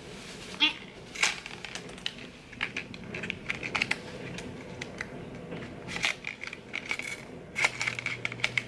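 Small cardboard lip-pencil box being handled and pried at: scattered clicks, taps and light scrapes as fingers work at its end flap, trying to get the pencil out.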